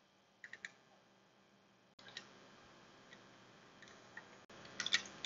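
Faint, scattered clicks and light taps of a spoon against oyster half shells on a foil-lined tray as a mayonnaise paste is spooned on, with a small cluster of clicks near the end.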